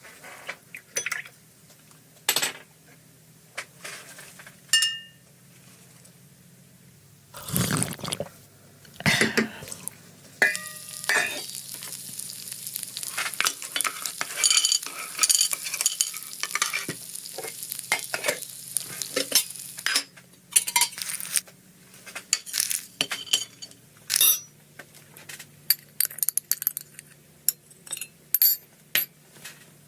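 Kitchen cooking sounds: utensils clicking and clinking against a pan, then from about ten seconds in a dense sizzle of pencils frying in oil that runs for about ten seconds. Sharp taps and clinks carry on through and after the sizzle.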